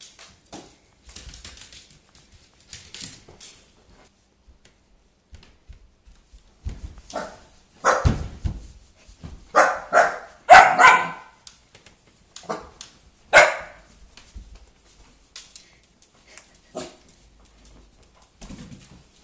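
Small Shih Poo puppy barking in alarm at a spinning hula hoop. A run of loud barks comes about halfway through, followed by a few fainter ones.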